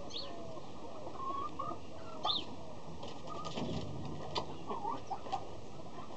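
Mixed farmyard bird calls: chickens clucking, with short chirps and calls from other birds and a few clicks scattered throughout.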